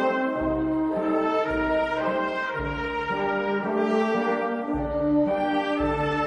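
Brass band music: slow, held chords of horns and trombones changing about once a second over low bass notes.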